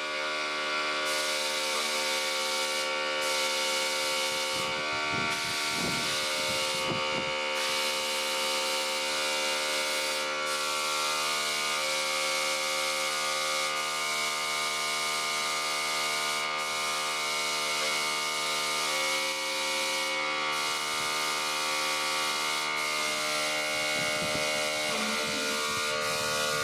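Air compressor motor running with a steady buzzing hum, under the hiss of air from a paint spray gun; the hiss drops out briefly several times as the trigger is let go between strokes.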